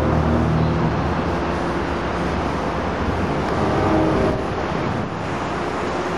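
Coaster commuter train's bilevel cars rolling past and away on the rails, a steady rumble of wheels on track.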